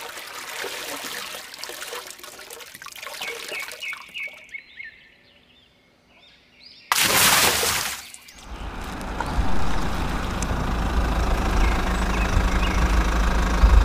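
Outdoor ambience with birds chirping a few seconds in, then a short, loud rush of noise about seven seconds in, followed by a steady low rumble.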